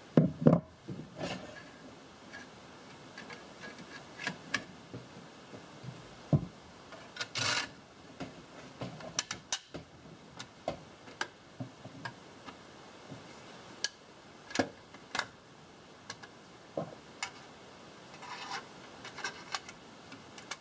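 Sheet metal being bent and handled against a steel conduit barrel on a wooden bench: irregular clicks, taps and knocks, the loudest right at the start, with a short scraping rub about seven seconds in.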